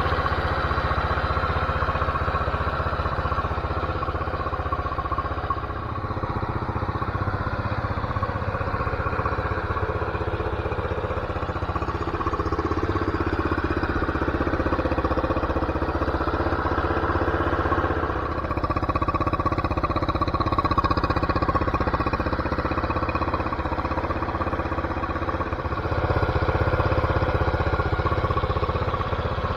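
Lifan single-cylinder four-stroke engine, newly swapped into a 1980 Honda CT110 Trail 110, idling steadily.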